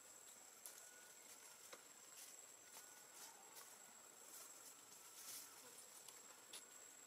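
Near silence: faint outdoor ambience with a steady high-pitched insect tone and a few soft ticks.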